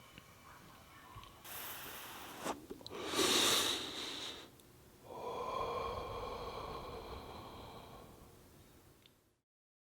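A person inhaling and exhaling smoke: a breath in, a louder, sharper draw, then one long exhale that fades away and stops about nine seconds in.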